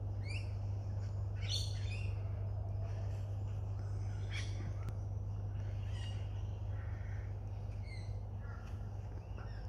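Birds giving short, high chirps and twitters at irregular intervals, with a small cluster about a second and a half in, over a steady low hum.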